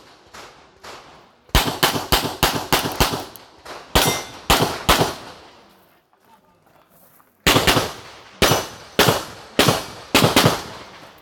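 Handgun shots fired in fast strings during an IPSC practical-shooting stage: a quick run of about seven shots, then three more, a pause, and another rapid string of about eight.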